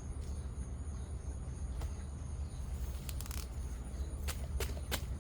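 Digging in garden soil: a handful of short scrapes and clicks as a tool works the earth around an onion, over a steady high insect buzz and a low rumble.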